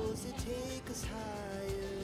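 Background music: a song with a sung melody over instruments and a steady beat.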